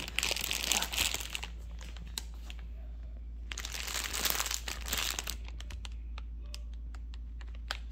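Dog-treat bag being crinkled in two bursts, one right at the start and a longer one about halfway through, followed by a few light clicks.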